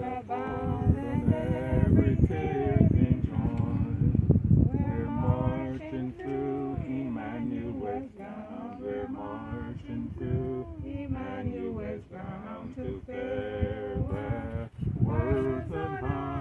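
Unaccompanied voice singing, with some notes held for a second or more, over a low rumble.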